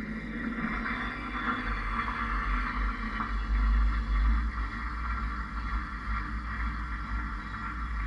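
Front-loading washing machine drum turning during a wash, heard from inside the drum: a steady low rumble with water sloshing and hissing over it.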